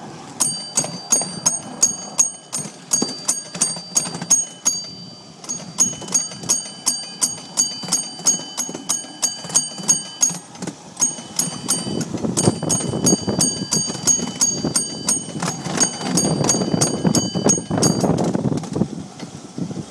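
A small high-pitched trolley bell struck over and over, about two strokes a second, in runs with short breaks, stopping near the end. The ride's running rumble grows louder under it for the last several seconds.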